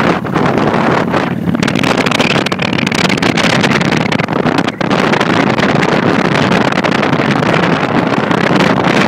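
Motorcycle engine running at low speed under loud wind rushing over the microphone.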